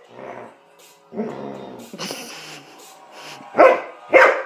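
Belgian Malinois vocalizing: a lower, drawn-out sound about a second in, then two short, loud barks about half a second apart near the end.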